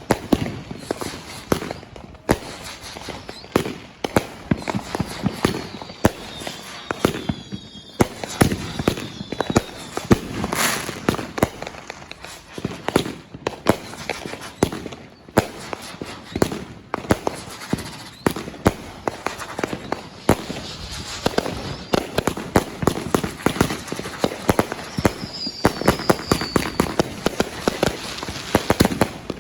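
Fireworks going off in a continuous barrage of rapid bangs and crackling pops, with a few short whistles gliding in pitch twice.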